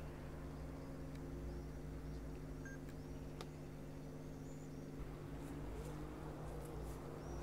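A steady low hum of several held tones, with a few faint short high chirps now and then.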